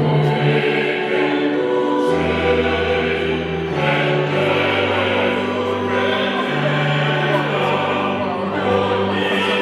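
A choir singing a hymn in long held chords, with the low bass notes moving every second or two.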